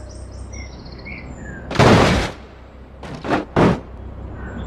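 A muddy toy car being washed by hand in a tub of water: a longer burst of splashing and scrubbing about two seconds in, then two short ones in quick succession. Faint bird chirps in the background near the start.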